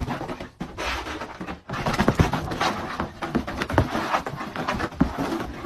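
Dog scrambling and spinning about on carpet, its paws scratching and thudding in quick irregular strokes.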